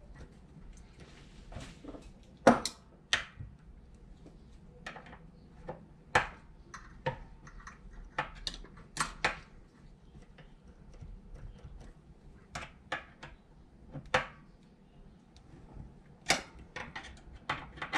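Irregular sharp metallic clicks and clinks from a bank of individual throttle bodies and a hex key as the throttle linkage adjuster screws are tightened with the throttles held closed. The loudest click comes about two and a half seconds in.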